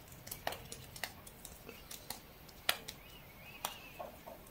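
Fingertips patting a tacky, slime-like bean essence into the skin of the face and neck, making about half a dozen soft, irregular smacks against faint room tone.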